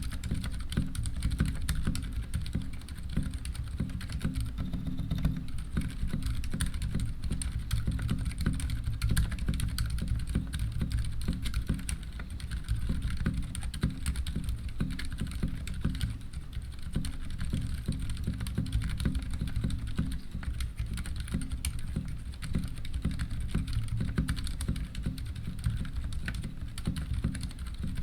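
Continuous fast typing on a Ducky One 2 Mini mechanical keyboard with unlubed Cherry MX Silent switches and PBT doubleshot keycaps: a dense stream of soft, dull keystrokes.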